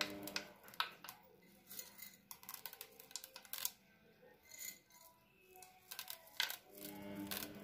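Chocolate chips clicking against a small ceramic bowl as they are pinched out and scattered onto cake batter: light, irregular clicks.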